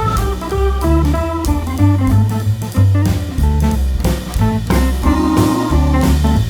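Background music: an upbeat jazzy instrumental track with guitar, bass and a steady drum beat.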